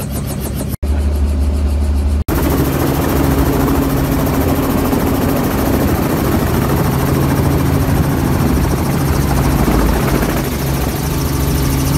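Helicopter rotor and engine running steadily at flight power, heard from inside the cabin as it lifts off. The sound cuts off briefly twice near the start.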